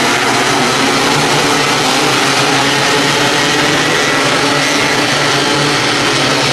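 Several 270-class micro sprint cars racing on dirt, their small single-cylinder engines running at high revs together in a loud, steady note.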